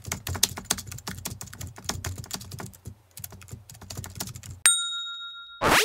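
Typewriter sound effect: a rapid run of key clicks, then a single bell ding about four and a half seconds in, followed by a short loud swish near the end.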